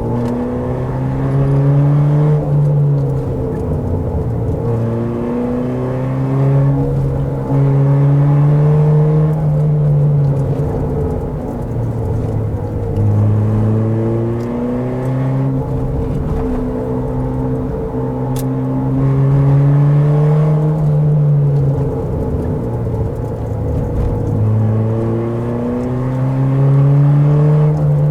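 Car engine heard onboard, pulling hard on a twisty road. Its pitch climbs over two or three seconds and then falls back, again and again.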